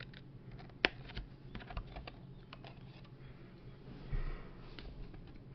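Light, scattered clicks and taps from handling a smartphone and its screen protector, with one sharper click about a second in and a brief soft rustle later.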